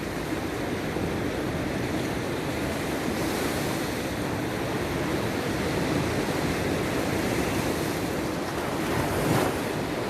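Sea waves washing onto the shore in a steady surf, with a louder wave breaking about nine seconds in, and wind on the microphone.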